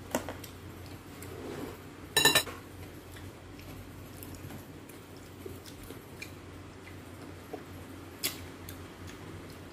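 A metal spoon clinks once against a ceramic bowl about two seconds in, the loudest sound, with a short ring. After it come faint handling noises as green grapes are picked from the bowl and eaten, and a sharp click near the end.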